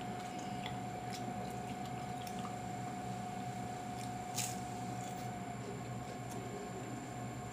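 A steady hum with a thin constant whine, from an electric fan, runs throughout. About four seconds in comes one crisp crunch as a cheese-filled wafer is bitten, followed by a few faint chewing clicks.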